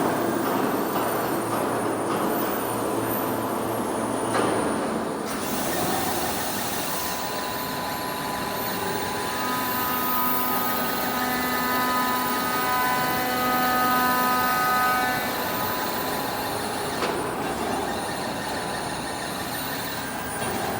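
CNC aluminium profile machining centre running, a steady mechanical noise. Several steady whining tones come in about seven seconds in and drop away about halfway through.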